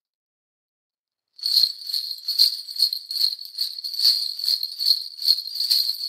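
A cluster of small jingle bells shaken in a steady rhythm, about two to three shakes a second, starting after a little over a second of silence.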